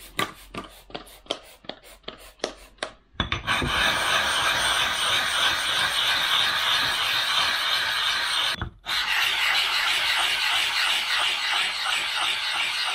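A quick run of squirts from a Windex spray bottle, then a sharpening stone scrubbed back and forth on a wet 120-grit diamond plate in a steady gritty rasp, with one brief pause a little past halfway; the stone is being lapped flat to remove a dish worn into its center.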